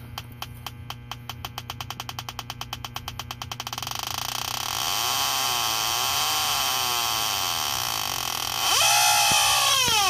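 Electronic refrigerant leak detector ticking faster and faster, then about four seconds in turning into a continuous warbling alarm that gets louder with sweeping pitch near the end. It has picked up R-410A leaking at the orifice fitting of the aluminum indoor coil.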